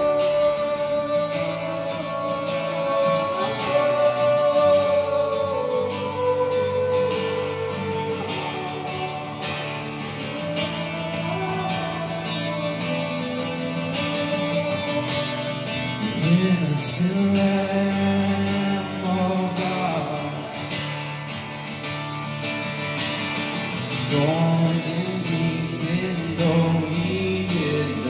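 Live worship song: acoustic guitar playing under sung melody.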